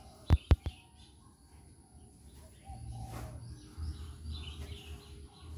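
Two sharp knocks close together near the start, then faint birds chirping in the background over a low rumble that comes in about halfway.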